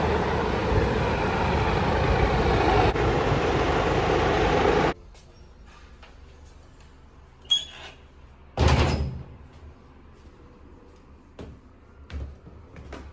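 Strong wind rushing over the microphone for about five seconds, cutting off abruptly. Then a quieter stretch with a few short knocks and a louder thud.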